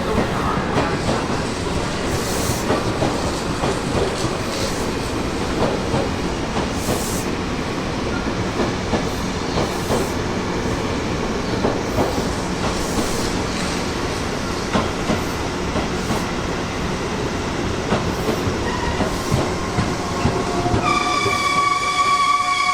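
Tobu Tojo Line electric train running on the track, its wheels clacking over rail joints. Near the end a horn sounds and falls in pitch.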